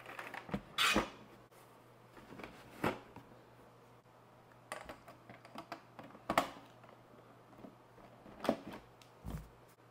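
A plastic board-game insert tray being set into a cardboard game box and pressed into place by hand: a few scattered clacks and knocks, the loudest about a second in, with light handling noise between.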